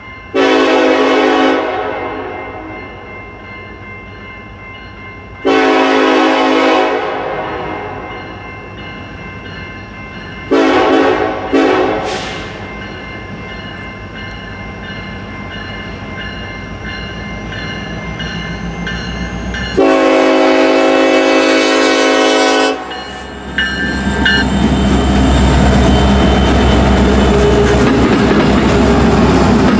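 Norfolk Southern diesel freight locomotive sounding its multi-chime air horn in the grade-crossing pattern: two long blasts, a few short ones, then a final long blast. Near the end the locomotives reach the crossing with a loud, heavy rumble and wheel clatter on the rails.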